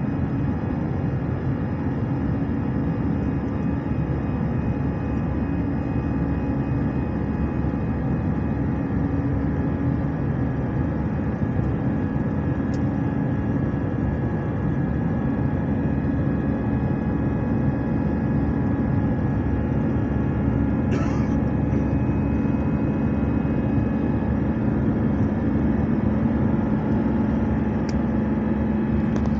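Airbus A319 cabin noise at a window seat by the wing: the steady rush and hum of the jet engines and airflow, with a constant low drone. A few faint clicks in the cabin, the clearest about twenty seconds in.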